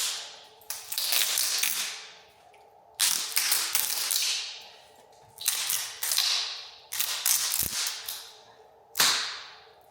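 Aluminium coolant channel being ripped off a Tesla Model 3 battery module, about five bursts of tearing and scraping as the epoxy-bonded strip is pulled away from the cells. Each burst starts abruptly and fades, and there is one low thump near the end.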